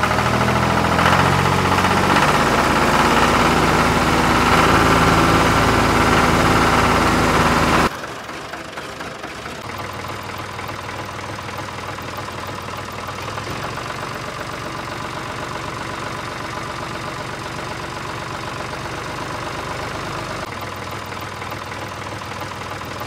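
An engine running steadily, loud and changing in pitch in steps for about the first eight seconds, then cutting abruptly to a quieter, steady engine hum with a thin whine.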